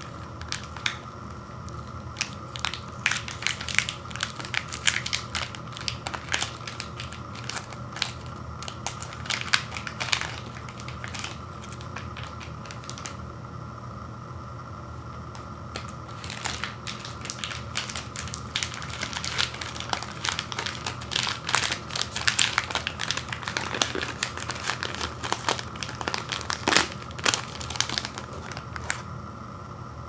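Foil-lined snack bar wrapper crinkling and crackling as it is pulled open by hand, with a quieter lull of a few seconds about halfway through.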